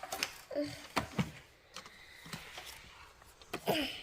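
Scattered light clicks and knocks from the plastic parts of a Henry vacuum cleaner being handled and taken apart, with a short voice sound near the end.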